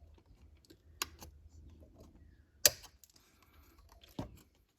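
Sprue snips clipping plastic model-kit parts off the sprue: a few separate sharp clicks, the loudest about two and a half seconds in.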